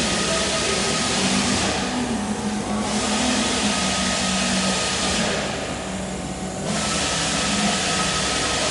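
A machine running steadily with a low hum and a hiss; the hiss fades out twice for about a second, then comes back.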